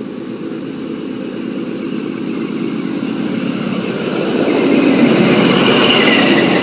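XPT diesel passenger train arriving at a platform, its leading power car passing close. The engine and wheel noise rises steadily to its loudest about five seconds in, and a high squeal joins near the end as the train slows.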